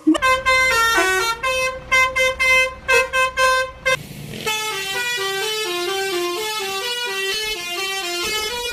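Telolet basuri multi-tone bus horn sounding. For about four seconds it gives short, repeated honking calls; then, after a brief break, it plays a continuous stepping melody.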